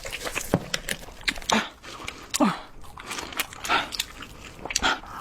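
Close eating sounds: biting and chewing seafood, a dense run of sharp wet clicks and crunches.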